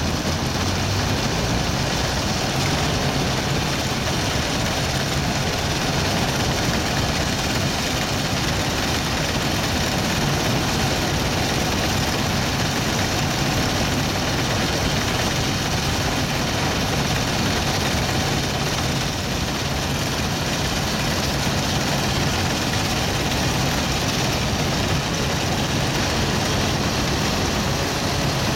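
Vintage Massey Ferguson 400 combine harvester running steadily, its engine hum under a dense, even machinery clatter.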